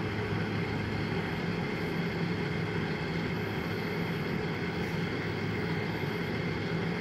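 A steady low hum over a constant background hiss, unchanging throughout, with no distinct events.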